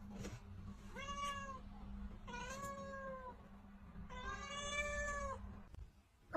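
A domestic cat meowing three times, each meow longer than the one before, the last about a second long. A faint steady hum runs beneath.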